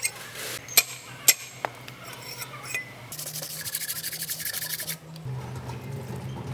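Metal engine parts being handled: four sharp clinks in the first two seconds, then about two seconds of metal scraping and rubbing, over a low steady hum.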